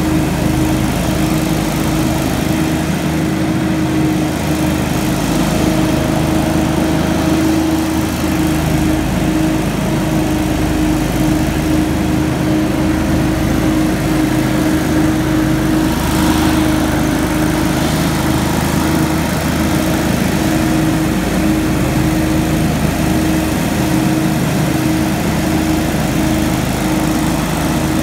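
Hurricane X3 stand-on leaf blower running steadily, a constant engine drone under the rush of its air blast as it pushes wet leaves.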